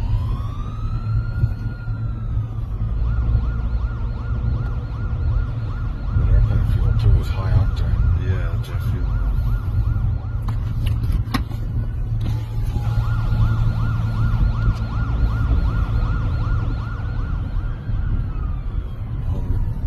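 Emergency vehicle siren switching between a slow rising-and-falling wail and a fast yelp, then back to the wail, over a steady low rumble of car engine and road noise.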